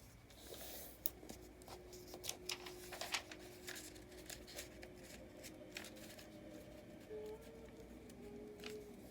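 Sheet of paper being folded and creased by hand: soft rustling with scattered sharp crackles as the folds are pressed down.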